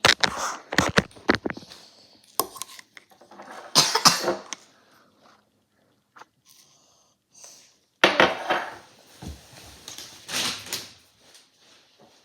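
Handling noise in three bouts: objects clattering and rustling, with clinks of the dishes-and-cutlery kind.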